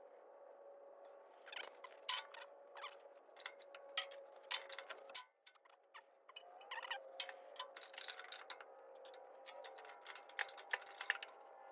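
Irregular light metallic clicks and ticks, typical of wrenches and hose fittings being worked loose on an excavator's hydraulic lines, over a faint steady hum; there is a short lull about five seconds in.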